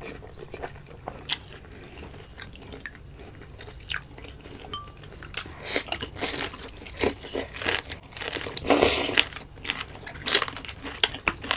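Close-miked eating: a person biting and chewing food, quiet with a few small clicks at first, then a run of loud bites and chews from about halfway through.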